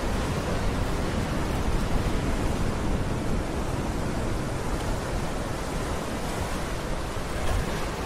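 Ocean surf washing in among shoreline rocks: a steady rush of water with no single wave break standing out.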